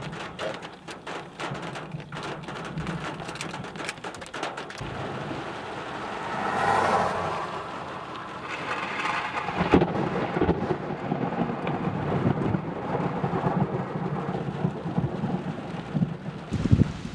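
Rain pattering with thunder from close lightning: a rumble swells about six seconds in, then a sharp crack near ten seconds opens a long, rough rumble that runs on until near the end.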